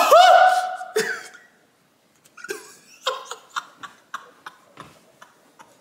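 A man's loud, high-pitched shriek of laughter that cuts off about a second in. After a brief pause comes a run of short, quieter laugh bursts, about three a second.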